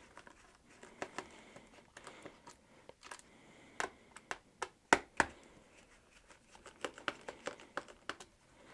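Small irregular clicks and ticks of a screwdriver turning the captive Phillips screws that hold the battery in a Lenovo ThinkPad T14 Gen 5, the sharpest click a little after five seconds in.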